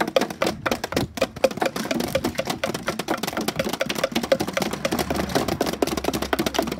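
Several people beating a metal pole with plastic bottles: a dense, irregular clatter of many quick knocks.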